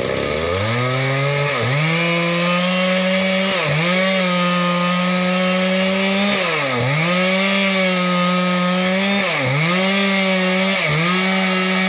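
Two-stroke chainsaw running at high revs while cutting a log; its engine note dips briefly and climbs back about five times.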